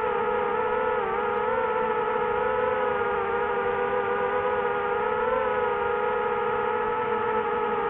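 DJI FPV drone's motors spinning 5045 bullnose two-blade propellers in sport-mode flight: a steady whine with several stacked pitches, wavering slightly in pitch, dipping briefly about a second in.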